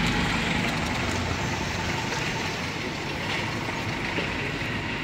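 Steady outdoor street noise: an even wash of traffic sound with no single event standing out.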